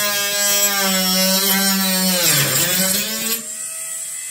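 Cordless electric screwdriver running with a steady whine while backing out screws from a model railway layout. Its pitch sags briefly about two and a half seconds in, then recovers, and it runs quieter for the last second.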